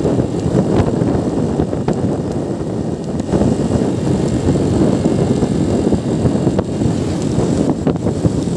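Motorcycle under way at road speed: a steady, loud drone of engine and wind rumble on the microphone.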